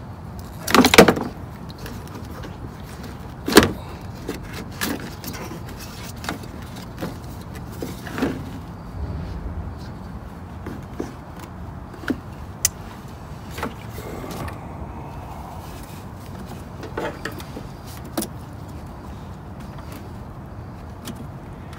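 Scattered clicks, rattles and knocks of hand work on headlight wiring connectors and plastic parts, over faint steady background noise. A short burst of rattling about a second in and a sharp knock at about three and a half seconds are the loudest.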